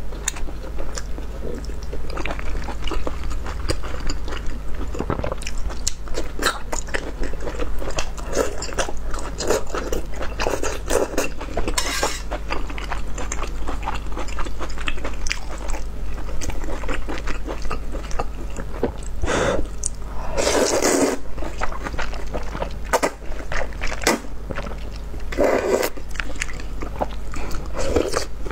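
Close-miked eating of rice-noodle soup: wet chewing and mouth clicks throughout, broken by several longer slurps of noodles and broth, the loudest about twenty seconds in.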